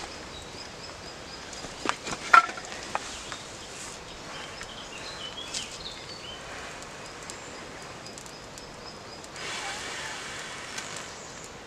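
A smouldering tinder bundle of wood shavings in a fire pit being blown on to bring it to flame: a breathy rush about three-quarters of the way through. Earlier come a few sharp snaps and clicks, with faint high chirps repeating in the background.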